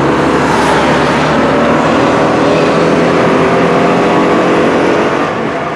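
Trabant 601's two-cylinder two-stroke engine running steadily while the car drives along, heard loud inside the small cabin.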